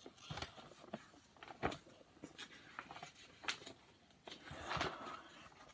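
Faint handling noise from a paper picture book and hands: a few soft taps and clicks, then a longer paper rustle about four and a half seconds in as a page is turned.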